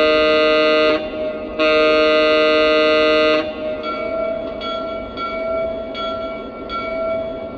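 Lionel Legacy GP7 model locomotive's electronic diesel horn sounding two long blasts through its onboard speaker, the usual signal that the train is about to move off, followed about a second later by its locomotive bell starting to ring, roughly one and a half strikes a second.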